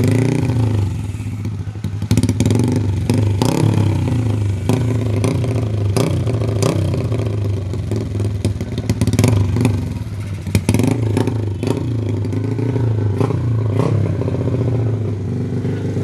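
Modified single-cylinder four-stroke motorcycle engine (56 mm bore, stroker crank, grind cam, 32 mm carb) running through a Noo Lamluka 'Super Open' open exhaust. It is revved repeatedly, the pitch rising and falling, with sharp clicks throughout.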